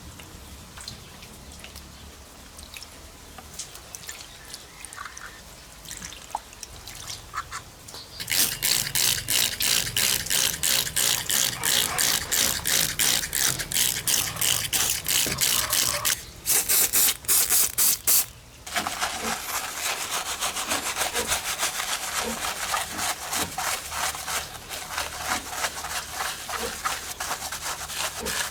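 Brush scrubbing a mud-caked 1:24 diecast model car: quiet small clicks and drips at first, then about a third of the way in a fast, even rasping rhythm of strokes begins. It is broken by a few louder separate bursts about two thirds through, then goes on more softly.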